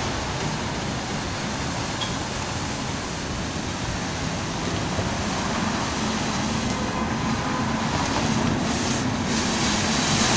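Street sweeper running along the curb: an engine hum under a steady rushing hiss from its brooms, slowly growing louder as it approaches, with passing traffic.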